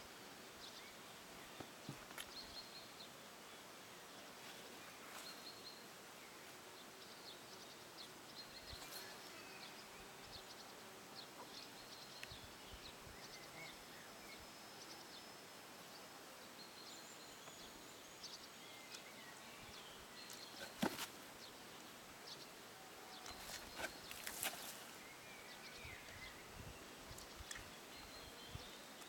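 Quiet outdoor garden ambience with faint, scattered bird chirps, and a few short knocks, the loudest about two-thirds of the way through.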